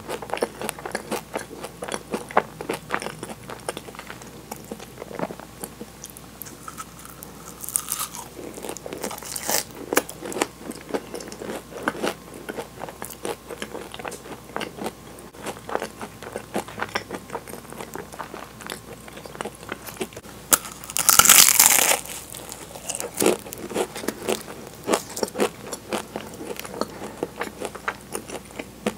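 Close-up biting and chewing of Portuguese-style egg tarts: the flaky puff-pastry shell crackles and crunches between wet mouth sounds. About two-thirds of the way through comes a louder crackling crunch lasting about a second.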